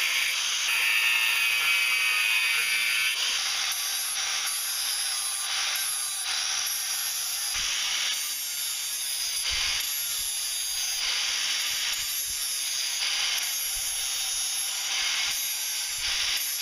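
A metalworking tool working steel, making a steady harsh hiss that rises and falls every second or so, with a faint whine in the first few seconds and a few soft knocks.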